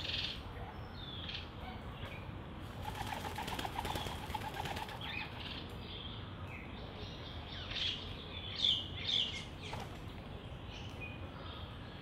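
Doves' wings flapping as they land and take off at a seed feeder: a short flurry at the start and a longer fluttering clatter about three to five seconds in. Small birds chirp in the background, loudest in a few sharp chirps near the end.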